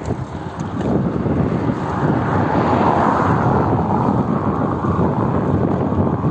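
Wind rumbling on the microphone of a phone carried on a moving bicycle, with a broad rushing noise that swells in the middle and eases off again.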